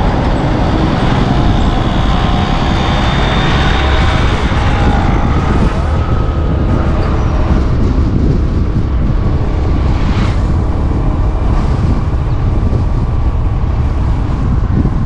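Motorcycle on the move: steady engine and road rumble, with a faint engine note rising and falling in the first few seconds.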